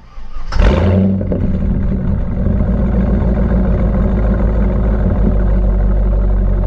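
C5 Corvette V8 with a Borla cat-back exhaust and the catalytic converters removed, starting up about half a second in with a brief flare and then settling into a steady, deep idle.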